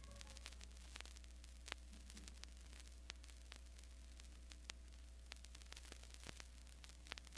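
Vinyl LP surface noise in the silent groove between two songs: scattered clicks and pops over a faint hiss and a steady low hum.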